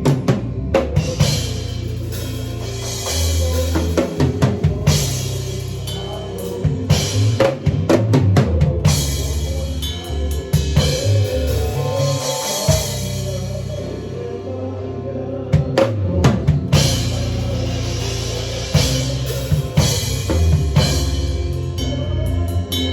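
Live drum kit played with kick, snare and cymbal hits and busy fills, over long held bass notes from the band.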